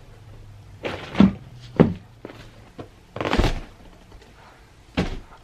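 A few separate thumps and knocks, the sharpest about one and two seconds in, with a longer, noisier one about three seconds in and a last knock near the end.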